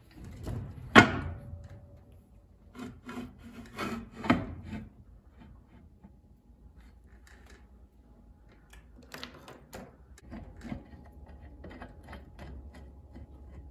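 Irregular metal clanks and knocks of heavy parts and hand tools as a homemade clutch-and-flywheel adapter is fitted and bolted onto a car transmission. One sharp clank about a second in is the loudest, with clusters of knocks around four seconds and again around nine to ten seconds in.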